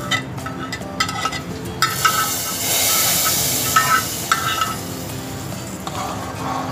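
Metal spoon scraping and clinking against a metal frying pan as ghee-fried vermicelli is tipped into a pot of hot milk, with a hiss from about two to four seconds in; then the spoon stirring in the pot.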